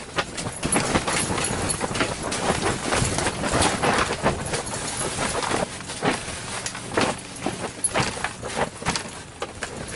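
Irregular knocking and crunching as a person steps out through an ice-fishing shanty door onto snow-covered ice, with wind buffeting the microphone.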